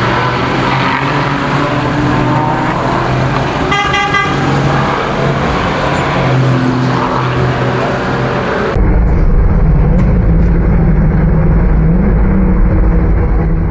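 Corvette C8.R race car's V8 engine running loud and steady, with a brief horn-like tone about four seconds in. Near nine seconds the sound cuts to a heavier, rumbling take of the engine, its note rising toward the end.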